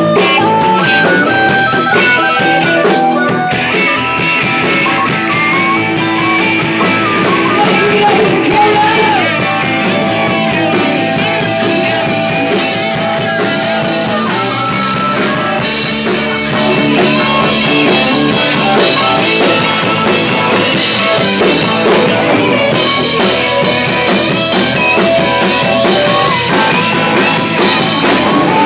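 Live blues-rock band playing loud: a harmonica playing long held notes over electric guitar, bass guitar and drums.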